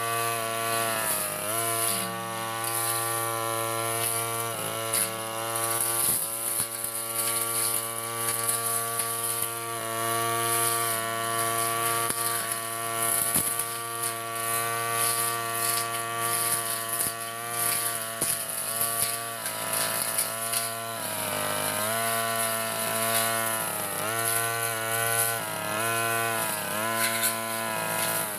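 Backpack brush cutter engine running at high speed while its cutting head clears grass down to the soil. Its pitch dips briefly again and again, most often near the end, as the load on the head changes.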